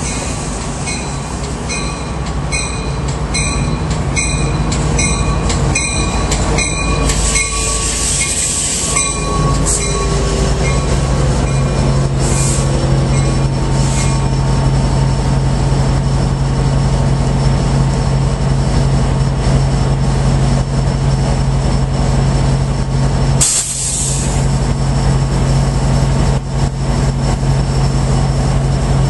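Pacific Surfliner passenger train pulling in beside the platform and braking to a stop, with a burst of brake hiss and falling squealing tones as it slows. Then its diesel locomotive stands running with a steady low hum, and a short sharp blast of air hisses about 23 seconds in.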